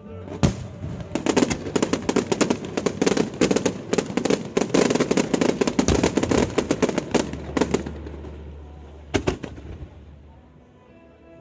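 Fireworks exploding in a rapid, dense barrage of bangs and crackles for about eight seconds. The barrage then thins, with one last cluster of bangs about nine seconds in, and dies away.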